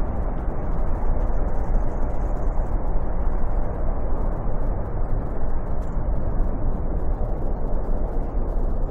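Boeing 747's four jet engines at takeoff thrust: a steady, deep rumble with no clear tone.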